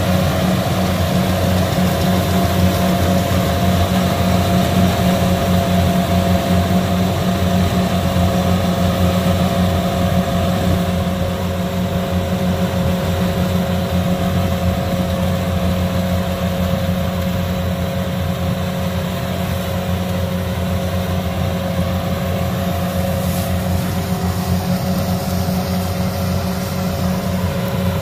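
Kubota DC68G combine harvester's diesel engine running steadily, a constant drone that eases slightly in level about eleven seconds in.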